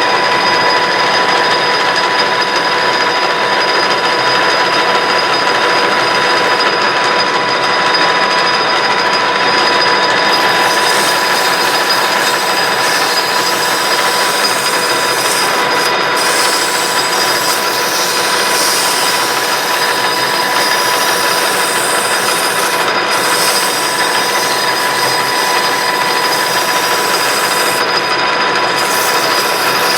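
Metal lathe running while the freshly cut lead screw thread is deburred on the spinning shaft: a loud, continuous scratchy rubbing over a steady high whine.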